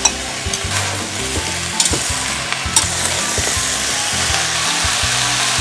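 Potatoes, carrots and onions sizzling steadily as they stir-fry with beef in oil in a stainless steel pot, the sizzle growing a little louder toward the end. A few sharp clicks are heard, about a second and a half apart.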